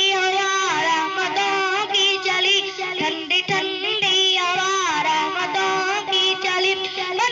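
A boy singing a naat, an Urdu devotional song in praise of the Prophet, in long melismatic phrases over a steady drone.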